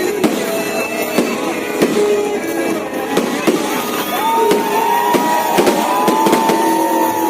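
Fireworks going off in a rapid string of bangs and crackles, with music playing over a sound system at the same time.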